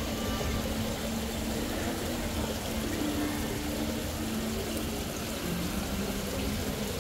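Steady ambient rush of noise, even and unchanging in level, with faint low tones coming and going underneath.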